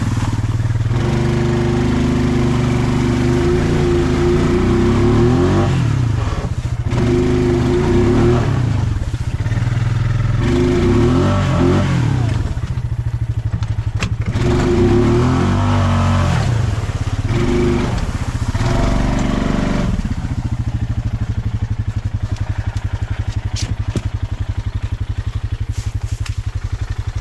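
Off-road vehicle engine revving up and down several times while riding, then settling to a steady idle about twenty seconds in.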